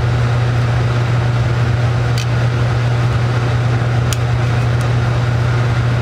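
Laminar flow hood's blower fan running with a steady, loud low hum and rush of air. A couple of faint light clicks come about two and four seconds in, as plastic Petri dishes are handled.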